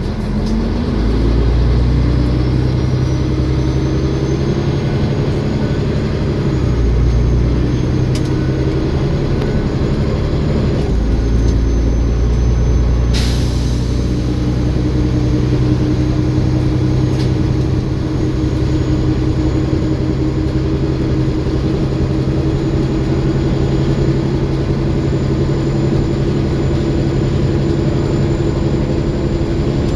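Olympian double-decker bus under way: the diesel engine pulls through several gear changes, with a high, thin turbocharger whine held steadily above it. One sharp click comes about thirteen seconds in.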